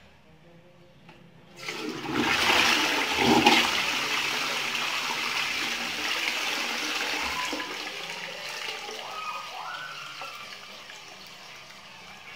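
Toilet flushing: a sudden rush of water starts about a second and a half in, is loudest for the first couple of seconds, then slowly fades as the water settles. A few short rising tones sound about nine seconds in.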